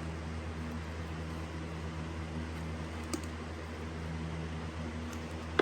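Steady low mechanical hum, with a faint click about three seconds in and a sharper click near the end as the plastic air filter tray is slid out of the airbox.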